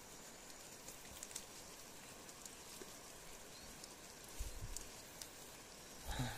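Faint handling sounds as a hand plucks a cluster of small white wild mushrooms from a wet log: a few light scattered ticks, then low bumps about four seconds in and again near the end.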